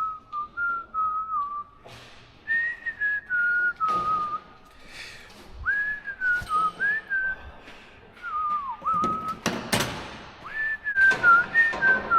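A person whistling a wandering tune, the pitch sliding between notes in short phrases, with a few knocks from the work, the loudest about ten seconds in.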